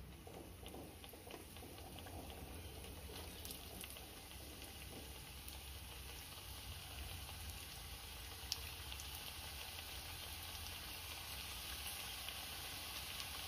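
Onion fritters (ulli vada) sizzling in hot coconut oil as they are lowered one at a time into a frying pan; the sizzle grows steadily louder as more go in. A single light tap about eight and a half seconds in.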